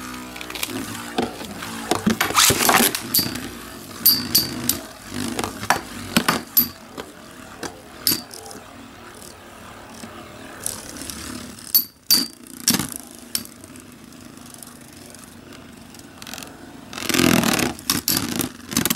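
Two L-Drago Beyblade spinning tops, a Hasbro Hyperblade and a Takara Tomy 4D-system top, both on Final Survive tips, whirring on a clear plastic stadium floor. Sharp clacks come as they strike, with a loud run of clashing near the end as they grind together in the centre.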